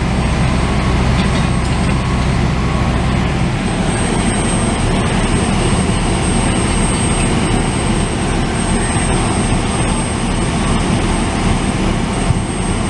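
Fire truck engine running with a steady low rumble. The low hum changes character about three and a half seconds in, and a thin high whine sits above it.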